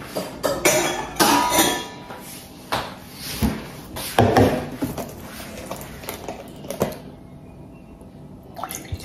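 A glass tumbler and a cardboard juice carton handled and set down on a wooden table: a series of knocks and clinks, the loudest a little over a second in and about four seconds in.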